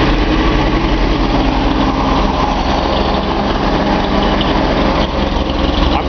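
Nissan L28 straight-six engine idling steadily while misfiring on one cylinder: number six is getting no fuel, which the owner puts down to a blocked injector or fuel line.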